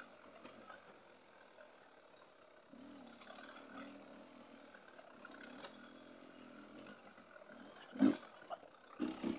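Dirt bike engine running quietly under the trail ride, its pitch rising and falling with the throttle, with one sharp knock about eight seconds in.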